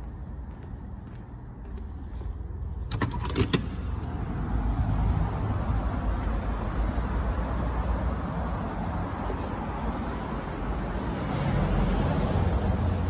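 Fire-exit door's push-bar latch released with a quick run of metallic clicks and clacks about three seconds in, the loudest sound; after it a steady low outdoor rumble.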